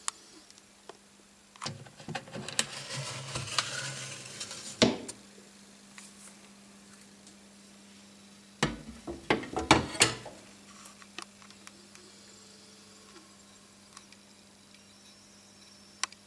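Two bursts of clattering and knocking of hard objects, the first about two seconds in, the second about nine seconds in, with a few single clicks, over a steady low hum.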